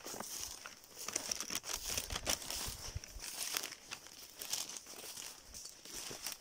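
Footsteps through fallen leaves and low undergrowth: an uneven run of crunches, rustles and crackles.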